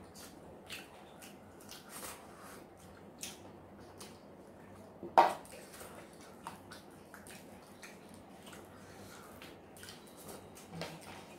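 Close-up eating sounds of roasted chicken legs being torn and chewed by hand: faint, irregular wet smacks and mouth clicks, with one louder knock about five seconds in.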